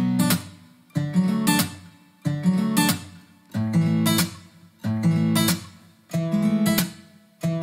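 Acoustic guitar strumming chords in a steady pattern: a sharp strummed chord about every 1.3 seconds, each one ringing and fading before the next.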